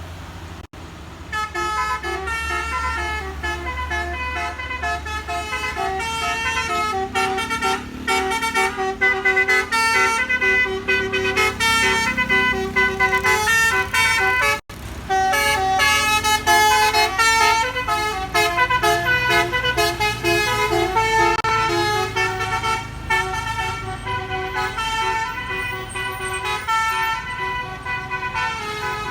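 Bus 'basuri' telolet horn playing a fast multi-note melody, note after note in quick succession, over the low running of the bus engine. The melody breaks off for an instant about halfway, then carries on.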